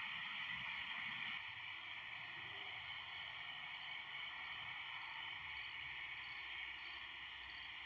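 A steady night chorus of insects, with a faint high chirp repeating about every two-thirds of a second.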